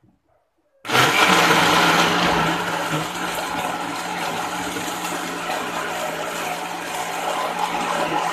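Electric jug blender restarting suddenly about a second in, after a brief silence, then running steadily with a constant motor hum as it grinds a thick paste of chillies, belacan and dried anchovies.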